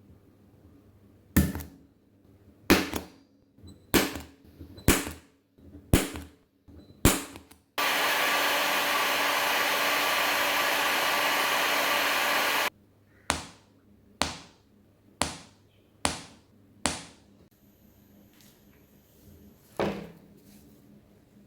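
A series of about six sharp clicks, then a hair dryer blowing steadily for about five seconds, stopping abruptly, then five more sharp clicks and a last one near the end. The hair dryer warms the phone's camera glass to soften its adhesive.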